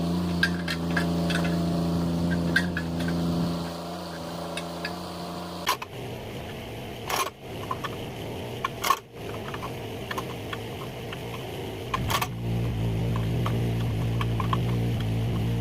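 Mini excavator's diesel engine running steadily, its tone shifting about six seconds in and settling lower after about twelve seconds. Four sharp knocks stand out over it, at about six, seven, nine and twelve seconds.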